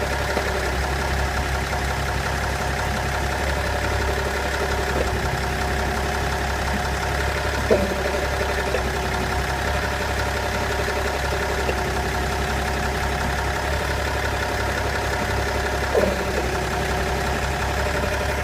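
BMW 530d E60's straight-six diesel engine idling steadily, carrying the weird noise that the owner thinks may be coming from the gearbox. Short, louder pitched sounds stand out above the idle about eight seconds in and again near sixteen seconds.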